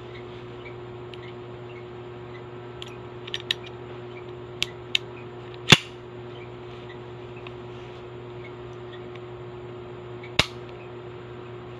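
Metal clicks and snaps of a 1911-style pistol being handled and put back together: a few light clicks a few seconds in, a sharp loud snap near the middle, and another sharp snap near the end.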